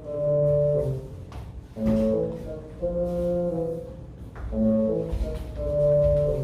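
Brass ensemble music: slow held chords, changing about once a second.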